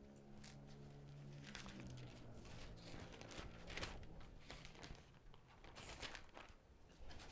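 Faint rustling and crinkling of thin Bible pages being leafed through, as a run of soft scattered crackles.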